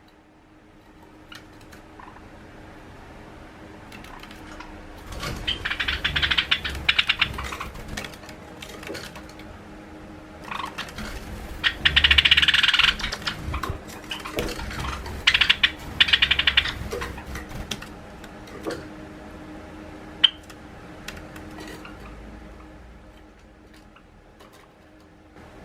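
Java sparrows' rapid clicking alarm chatter with wing flutter, in three bursts about six, twelve and fifteen seconds in, with scattered single clicks between: startled calls as one bird raids the others' nest box.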